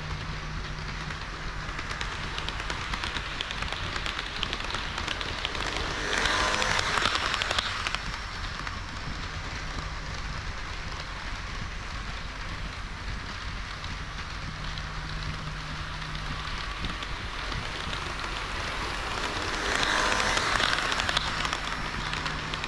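HO-scale model KiHa 40 / KiHa 58 diesel railcar train running on the layout's track: a steady rolling hiss of small wheels on rail with a faint motor hum that comes and goes. The hiss grows louder twice for about two seconds, about six seconds in and near the end.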